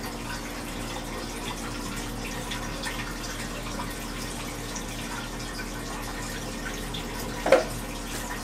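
Aquarium powerhead water pump running: a steady splashing and trickling of water with a low hum under it. A single short knock sounds near the end.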